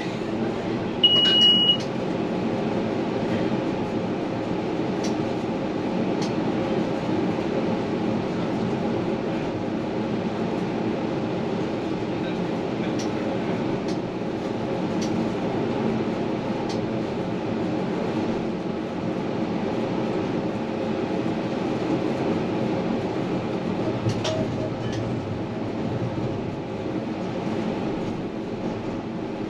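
Tram running along its track, heard from inside the front of the car: a steady rolling rumble and motor hum with occasional faint clicks from the wheels on the rails. About a second in, a short high beep sounds.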